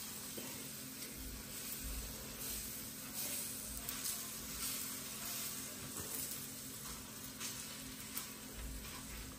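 Gram-flour (besan) pancake batter sizzling steadily on a hot flat griddle (tawa), with a few soft scrapes of a spatula spreading it.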